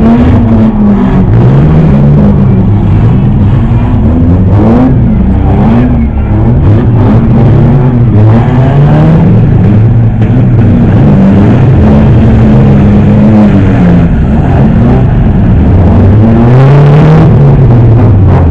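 Engines of several battered demolition-derby cars revving up and down over and over, overlapping and loud, with a few short knocks.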